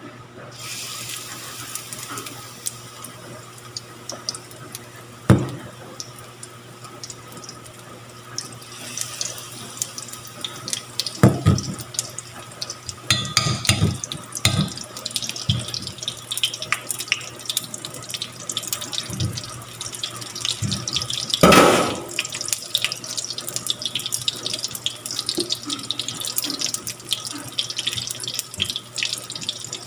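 Sweet potato pancake batter sizzling and crackling in hot frying oil in a pan, starting about half a second in as the batter goes into the oil and getting busier after about nine seconds. A few sharp knocks come in between.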